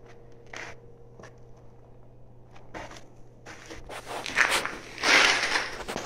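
Footsteps crunching and scuffing on a gritty, sandy floor, heavier toward the end, over a steady low hum.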